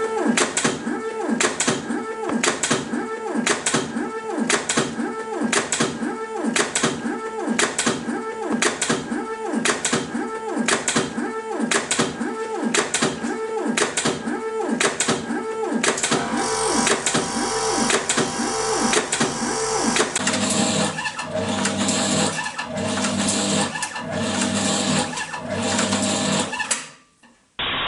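Automatic tape cutting machines cycling: a motor whine that falls in pitch with each stroke, about one and a half strokes a second as the tape is fed and cut. It changes partway through to a slower rhythm of about one cut a second with a steady hum.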